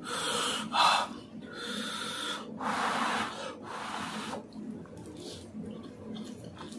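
A man blowing on a forkful of steaming-hot instant noodles to cool them, several rushing puffs of breath in the first four seconds or so, then quieter mouth sounds as he starts to eat.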